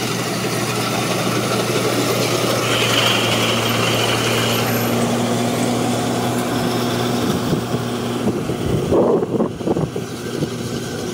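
Rice combine harvester's diesel engine running steadily under load as it cuts and threshes, a constant hum. A few louder, uneven bumps come about nine seconds in.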